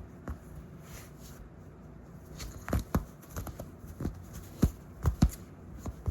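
Shiba Inu puppy scuffling about, making rustling and a run of sharp taps and knocks. The knocks come thickest and loudest in the second half.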